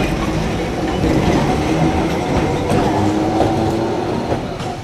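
Glasgow Corporation double-deck electric tram running along the rails, its wheels rumbling and clattering on the track, with a steady humming tone partway through.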